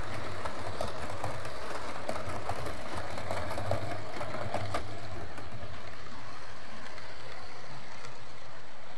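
00 gauge model train running on the layout: a steady motor hum with the wheels clicking over rail joints about every half second. About five seconds in, the clicking stops and only a fainter hum goes on.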